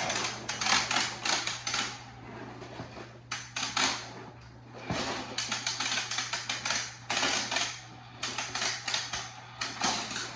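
Hot Wheels Ultimate Garage Robo T-Rex toy moving up its plastic garage tower: rapid plastic clicking and rattling in repeated bursts of a second or two, with short pauses between them.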